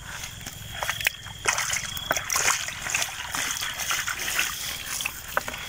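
Shallow muddy water trickling and lightly splashing, with many small scattered clicks and squelches. A thin steady high tone runs underneath.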